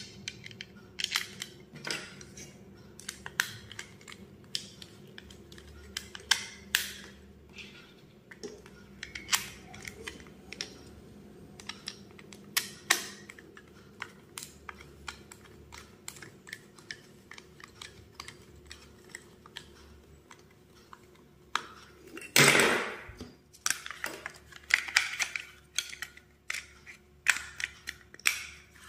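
Light clicks, taps and plastic rattles from a plastic bayonet lamp holder being handled as wires are fitted and its terminal screw is turned with a small screwdriver. About three quarters of the way through there is one louder, brief scrape.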